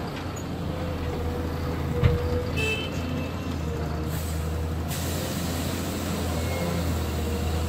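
Cat 320D hydraulic excavator's diesel engine running steadily as it works, with a dump truck's engine running alongside. A single knock comes about two seconds in, and a short burst of hiss about four seconds in, as the bucket empties soil into the truck's steel bed.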